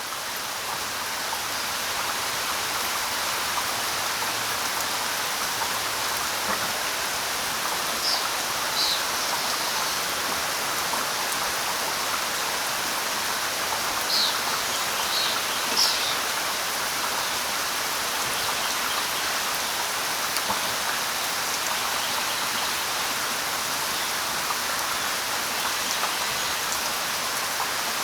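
Steady jungle rain, a dense even hiss that swells up over the first couple of seconds and then holds. A few short, high bird chirps cut through it about a third of the way in and again a little past halfway.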